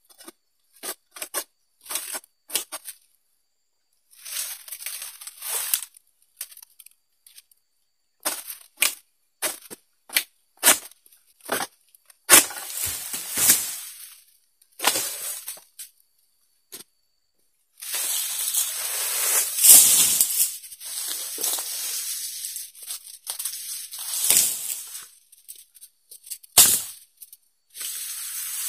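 Long-poled harvesting sickle (egrek) cutting oil palm frond stalks in the crown: a string of short, sharp cutting and scraping strokes. Later come longer stretches of rustling and tearing as the cut fronds break loose and fall through the leaves.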